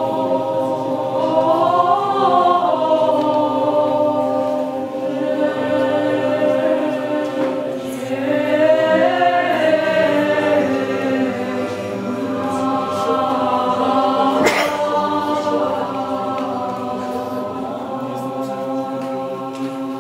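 Mixed choir of women and men singing Orthodox church chant in the Byzantine tradition, a cappella: a held drone note under a moving melody.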